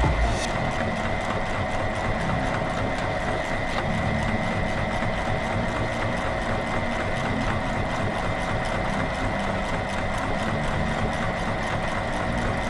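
Motor-driven meat grinder running empty, a steady mechanical hum with a high whine, its auger turning with nothing yet in the hopper.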